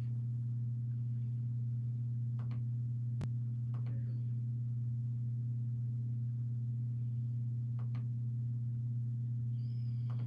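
A steady low electrical hum, one deep tone with a fainter higher one above it, with a few faint clicks.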